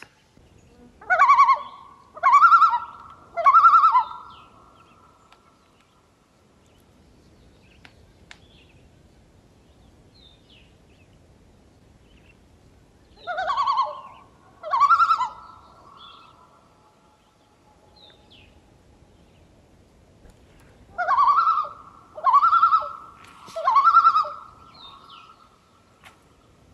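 Common loon calling across the pond: three loud, ringing phrases, then two more about ten seconds later, then another three near the end. Faint high chirps of small birds come in between.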